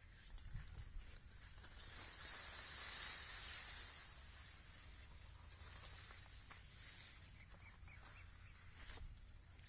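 Leaves and stems rustling as they brush against the handheld phone pushed through leafy plants: a hissing rustle that swells to its loudest between about two and four seconds in, then settles back.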